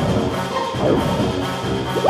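Background music with percussion, with two sweeping sound effects about a second apart.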